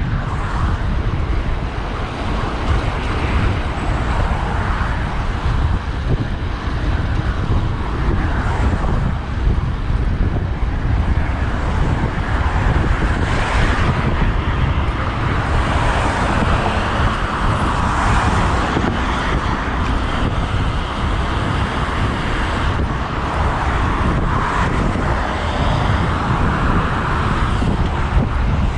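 Wind rushing over the microphone of a moving road bike, with car traffic passing on the road and swelling and fading several times.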